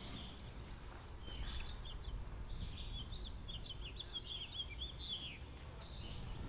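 A songbird singing a quick run of short, high chirps, starting about a second in and lasting about four seconds, over faint, steady outdoor background noise.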